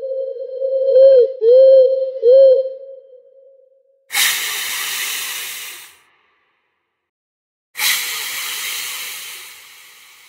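A steady tone that dips in pitch and comes back three times in quick succession, then fades away; then two hisses of about two seconds each, the first cutting off suddenly and the second trailing away.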